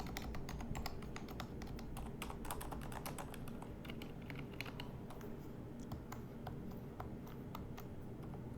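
Typing on a Kensington MK7500F QuietType Pro silent mechanical keyboard: very quiet, soft key clicks, a fast run of keystrokes over the first few seconds, then sparser taps.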